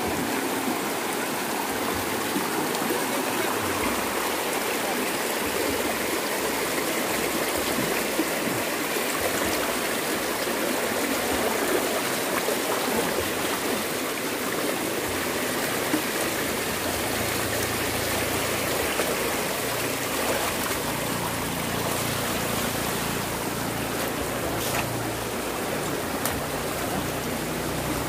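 Steady rush of a flowing stream, with a single sharp click near the end.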